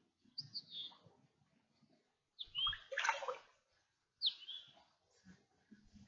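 Birds chirping in short bursts of quick calls, four times, with faint sloshing of shallow water as someone wades barefoot.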